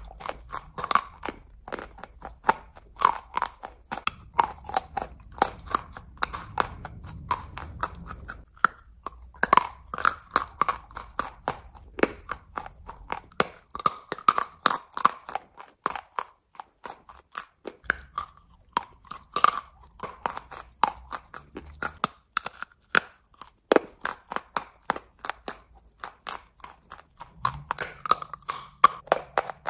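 Chalk coated in clay paste being bitten and chewed close up: a steady run of sharp, irregular crunches, several a second, as the chalk breaks between the teeth.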